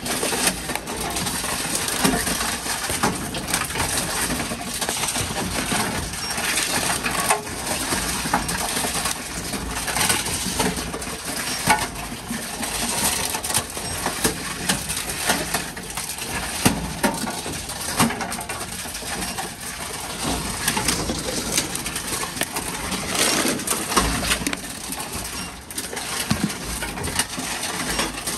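Envipco Ultra-48 reverse vending machine working through containers: clattering and crushing, with many sharp knocks and clanks over a steady machine noise.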